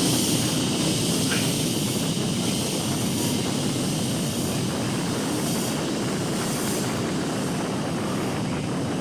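Steady drone of a motorcycle being ridden along a rough stone-and-gravel road, heard from on board, with engine and road noise blended into one even rush.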